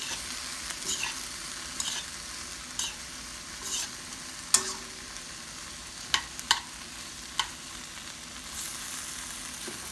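Sliced sausage, onion and bell pepper sizzling in a wok, a steady frying hiss. About eight sharp clicks are scattered through it as the pieces are turned in the pan; the loudest comes about halfway through.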